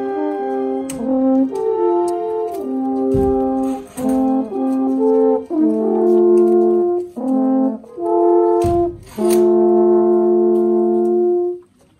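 Two alphorns playing a slow tune in two-part harmony: long held notes with short breaks between phrases, ending on a long held chord that stops shortly before the end.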